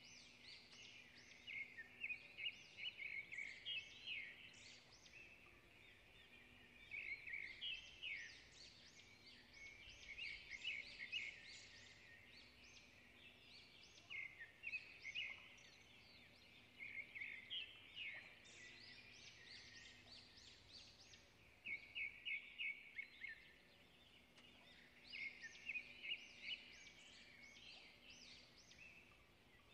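A bird chirping and trilling faintly, in phrases of rapid high notes a few seconds long, with short pauses between.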